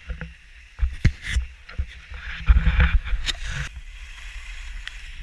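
Wind buffeting a GoPro action camera's microphone on a skier moving down a wet slope, in uneven gusty swells, with several sharp knocks from the camera being handled and a hiss of skis on wet snow around the middle.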